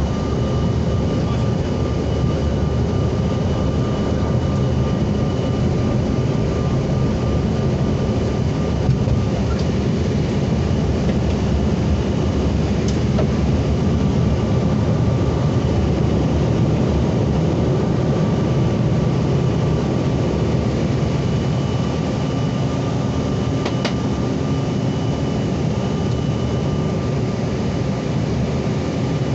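Cabin noise of a Bombardier CRJ900 regional jet at takeoff and climb-out: its two rear-mounted turbofans running at high power, heard as a loud steady rumble with a faint, steady high whine over it.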